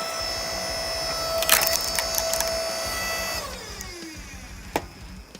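Stihl chainsaw running at full throttle through wood, with a sharp crack about a second and a half in. The throttle is released a little over three seconds in, and the engine winds down in pitch toward idle.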